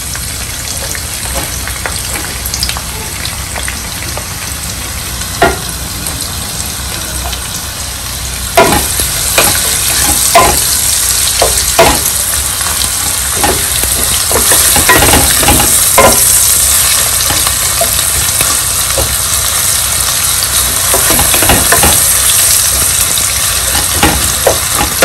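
Hot oil sizzling in a square nonstick pan. About a third of the way in, the sizzle grows louder and hissier as sliced onions go into the hot oil. A wooden spatula knocks and scrapes against the pan as the onions are stirred.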